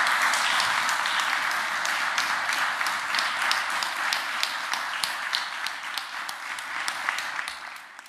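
Applause from a room of people clapping, steady and dense, dying away near the end.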